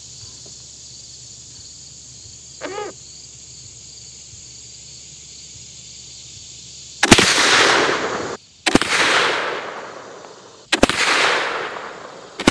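Shots from a .40-calibre flintlock muzzleloading rifle charged with 40 grains of 3F black powder and a patched round ball: three loud reports about two seconds apart, each dying away over a second or so, and a fourth at the very end. Before them, a steady high drone of insects.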